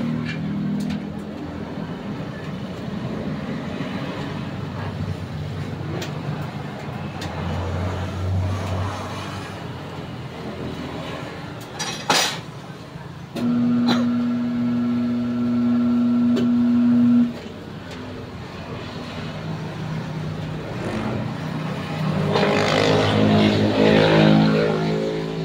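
Tire changer demounting a car tire from its steel rim, with metal clanks from the bead lever and tire and a sharp clack a little after halfway. The machine's motor then hums steadily for about four seconds before cutting off, and hums again near the end.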